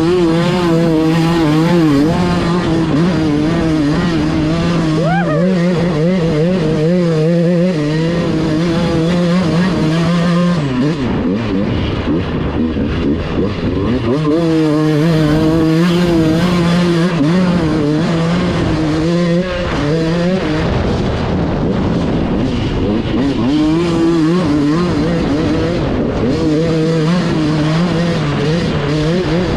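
Dirt bike engine revving and easing off under throttle. It drops away twice and picks up again each time.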